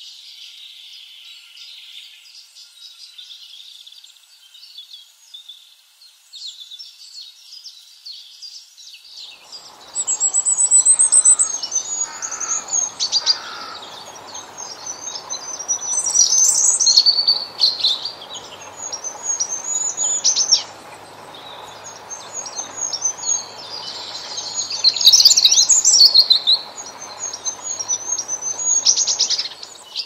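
Goldcrest singing: very high, thin notes repeated in quick phrases, some ending in a fast tumbling run. It is faint at first and louder from about ten seconds in.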